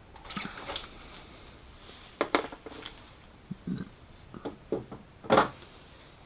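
Hand tools being handled while working at the back of the alternator: a brief rustle, then irregular clicks and knocks of metal tools, the loudest knock about five seconds in.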